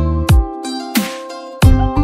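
Background music with a beat: deep kick drums and sharp, bright hits over held notes.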